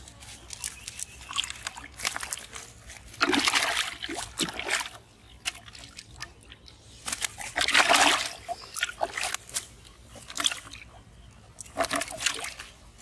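Live fish splashing in a plastic bucket of water as they are dropped in and thrash about, in three loud bursts with smaller splashes between.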